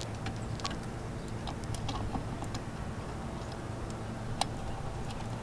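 Scattered small clicks and taps from a coaxial cable being handled and fastened onto the antenna's connector, one click standing out about four seconds in, over a steady low hum.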